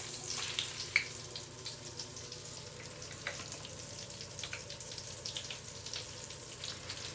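Mr Bubbles Magic Bath Crackles popping in bath water like Pop Rocks: many small, irregular crackles over a faint hiss.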